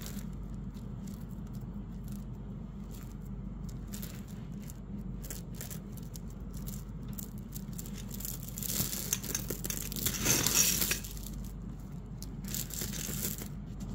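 Strands of faceted glass crystal beads on gold-tone linked chain clicking and rattling against each other as they are handled by hand, with a louder, busier spell of rattling a little past the middle.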